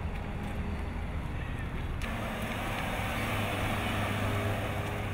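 Small hatchback's engine and road noise heard from inside the cabin, a steady low hum under a wider rush that swells about two seconds in as the car gets moving.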